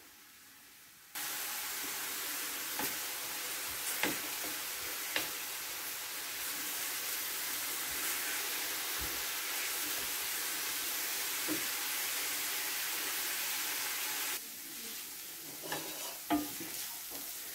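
Chopped onion frying in oil in a non-stick pan, a steady sizzle stirred with a wooden spoon that taps the pan now and then. The sizzle starts suddenly about a second in and drops away near the end, leaving a few spoon knocks.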